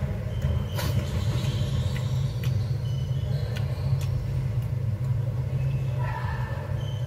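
A steady low rumble, with a few light clicks and short clinks from chopsticks and dishes as someone eats.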